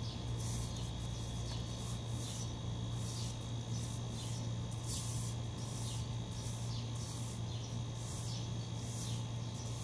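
Broom sweeping a tiled floor, a swish every half second to a second, over a steady low hum.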